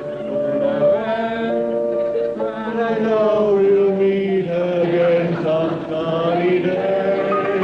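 Several men singing together in a comic chorus, holding long, wavering notes.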